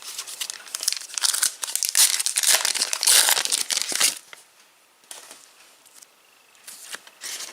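Foil wrapper of a trading card pack being torn open and crinkled for about four seconds, then only a few faint rustles and ticks.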